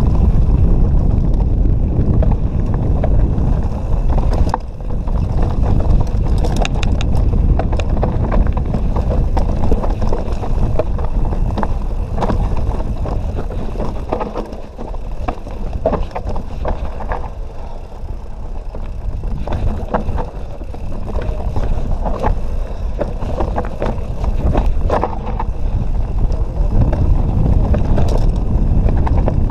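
Canyon Nerve full-suspension mountain bike riding a rough, rocky trail: steady rumble of wind and tyre noise on the action-camera microphone, with frequent sharp rattles and clacks from the bike hitting rocks. It eases off for a few seconds about halfway through, then builds again.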